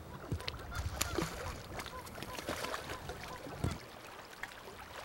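Splashing and the rush of river current as a hooked steelhead thrashes in shallow water, with scattered sharp clicks and low bumps that die away about four seconds in.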